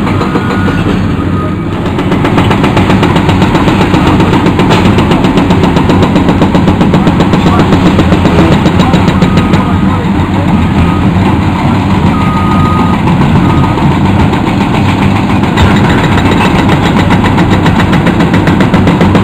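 Several Caterpillar hydraulic excavators running under load while breaking up a concrete overpass. From about two seconds in, a rapid, continuous hammering of hydraulic breakers on concrete rides over the diesel engines.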